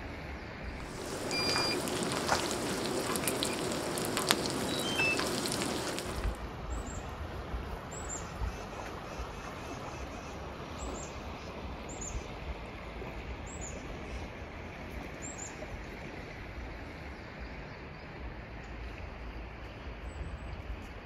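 Food sizzling on a wide steel disc pan over a propane camp burner, with a steady hiss. It is louder and crackling for the first few seconds, then settles. A short high chirp repeats every second or two.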